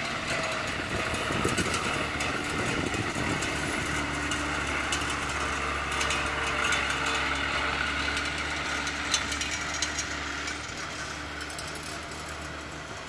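Citroën-Kégresse half-track's engine running steadily as the half-track drives slowly over grass, growing fainter toward the end as it moves away.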